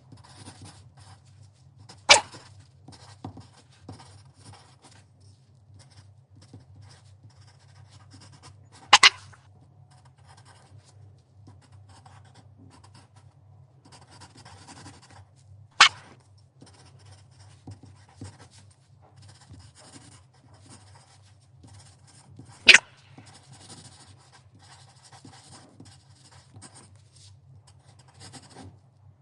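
A dog hiccupping: four sharp, brief hiccups about seven seconds apart, with a steady low hum underneath.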